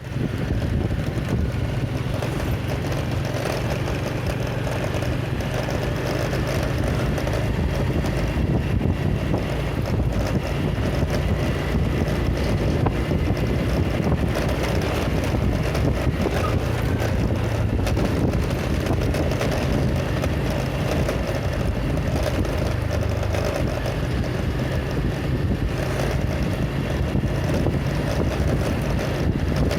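A vehicle driving steadily along a road: a low, even engine hum with wind rushing over the microphone.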